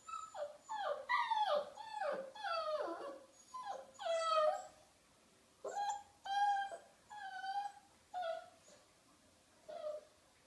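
Small Munsterlander puppy whining: a quick string of high cries, each falling in pitch, then after a short pause several shorter whines with gaps between them.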